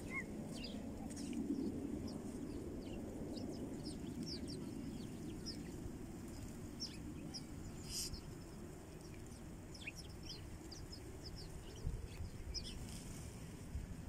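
A flock of house sparrows chirping: many short, high chirps scattered irregularly, one sharper than the rest about halfway through, over a steady low rumble.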